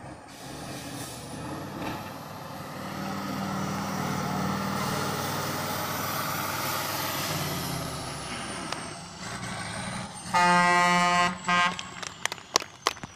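Six-wheeled trial truck's engine working hard as it climbs a sand mound, swelling and then easing off, with a thin high whistle that rises and then falls over it. About ten seconds in, an air horn sounds loudly for just over a second, followed by a few sharp clicks.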